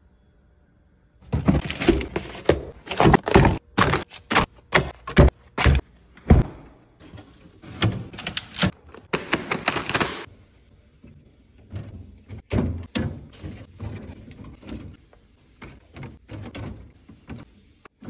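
Plastic shrink-wrap on a case of bottled water crinkling and tearing as bottles are pulled free, in loud crackling bursts for several seconds. After that, lighter taps and knocks as plastic water bottles are set down on a fridge shelf.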